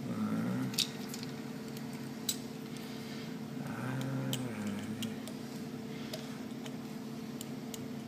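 Small screw and flathead screwdriver being worked into a servo motor's encoder housing: a few sharp little clicks and ticks of metal on plastic, over a steady low hum.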